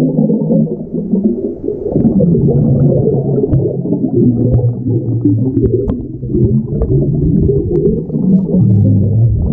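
Muffled underwater sound picked up by a submerged camera in a swimming pool: a low, wavering hum and rumble, with bubbles from a swimmer breathing out through the water.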